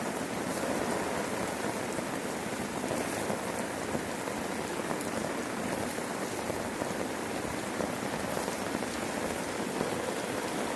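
Heavy rain falling steadily on a tarp overhead, with scattered sharper drop ticks.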